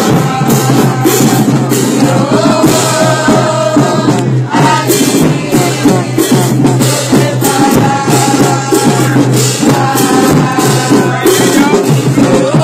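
A song with singing voices over a steady beat of drums and shaken percussion.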